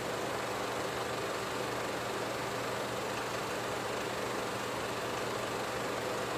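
Steady hiss with a low hum under it, unchanging, with no speech or music.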